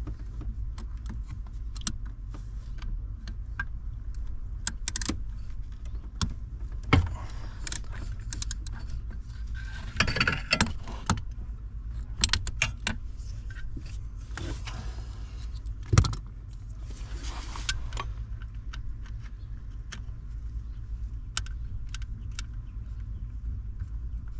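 Metal hand tools clinking and clattering at irregular intervals over a steady low hum. There is a sharper knock about seven seconds in and the loudest one about sixteen seconds in.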